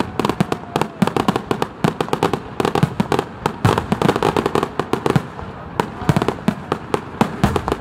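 Aerial fireworks display: shells bursting in a dense, irregular run of bangs and crackles, several a second without a pause.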